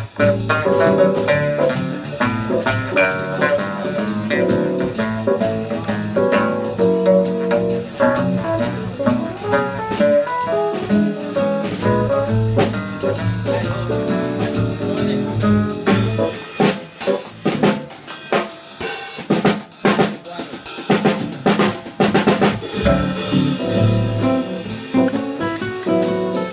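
Live acoustic jazz: two acoustic guitars playing over a snare drum keeping time. From about two-thirds of the way in, the drum takes over with a run of rapid strokes while the guitars drop back, then the guitars come in again.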